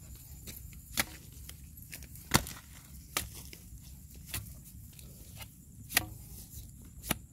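A wooden stick jabbed down into a hole in dry, hard-packed mud, giving six sharp knocks at irregular intervals. The loudest comes about two seconds in.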